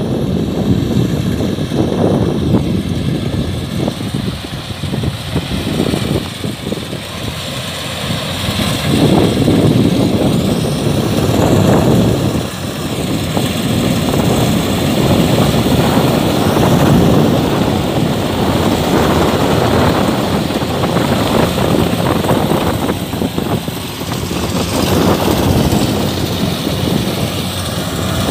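Kubota rice combine harvester running under load while cutting rice: a steady, loud engine-and-machinery drone that swells and eases a little.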